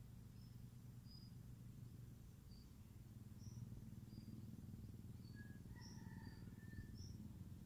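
Near silence outdoors: faint, short high chirps at irregular intervals over a low steady rumble, with a few lower chirps about six seconds in.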